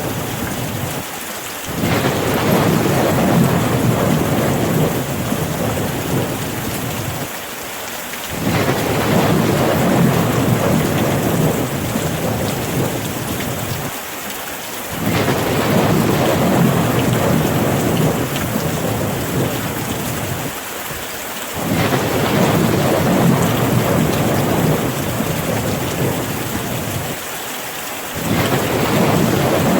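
Rain falling steadily, with a low rumble that swells in about every six or seven seconds and fades away again, evenly repeated.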